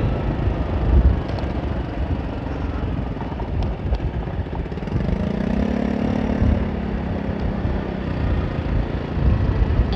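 Rusi RFi175 scooter underway on a winding road: its engine runs under steady wind rumble on the microphone. About five seconds in an engine hum swells for a couple of seconds, then fades.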